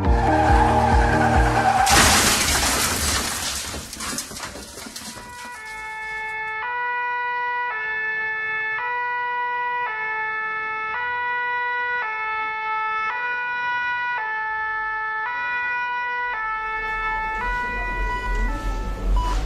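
A loud burst of noise that fades over a couple of seconds, then a two-tone emergency-vehicle siren alternating between a higher and a lower pitch about once a second.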